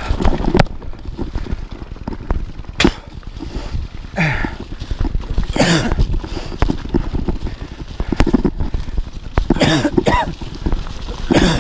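Mountain bike rolling fast down a leaf-covered dirt trail, with a steady rumble of tyres and wind on the microphone. About five times the rider lets out a rough, coughing breath, a sign of lungs that are still not right three weeks after COVID.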